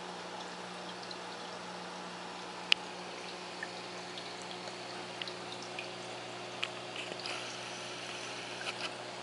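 Reef aquarium's filters and pumps running: a steady trickle of water over a low, steady pump hum. A sharp click comes nearly three seconds in, and scattered small ticks and pops follow in the second half.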